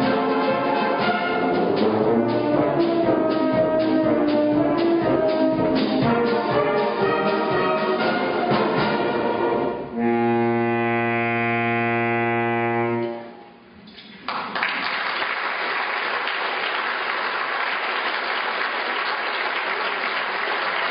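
Brass band playing the close of a piece, ending on a long held chord about ten seconds in that cuts off after about three seconds. After a brief pause the audience breaks into steady applause.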